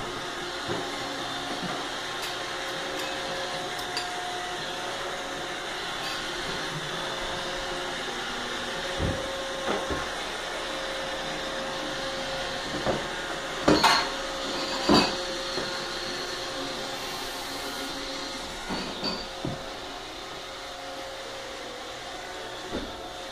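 A household machine running with a steady whir and a faint hum under it. Several short knocks and thumps cut through, the loudest two about two-thirds of the way in.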